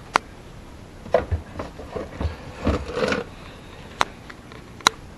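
Items being handled in an open refrigerator as a milk container is taken out: a few sharp clicks and knocks of bottles and containers, with softer bumping and rubbing in between.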